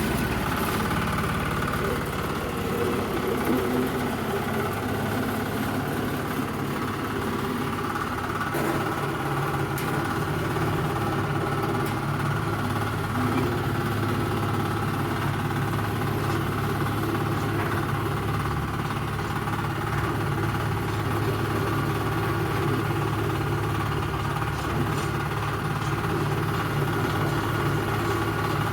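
Diesel engine of a 400-litre concrete mixer running steadily.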